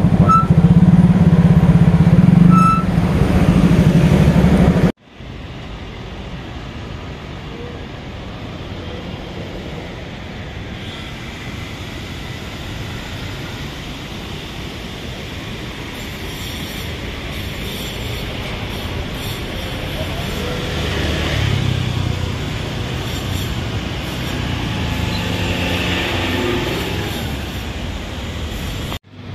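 Motorcycle riding slowly in street traffic, its engine and wind noise loud, with a few short high beeps. About five seconds in it cuts to a quieter, steady city traffic hum.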